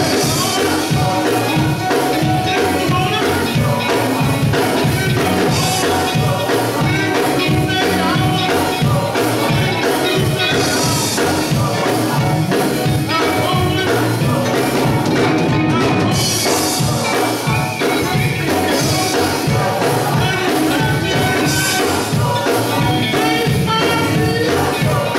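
Gospel vocal group singing with instrumental accompaniment and a steady beat.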